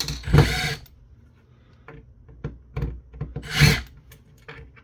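Scraping and clicking of the terminal's metal housing and screen parts being handled during disassembly: a short scrape at the start, a stronger one about three and a half seconds in, and scattered small clicks and taps between.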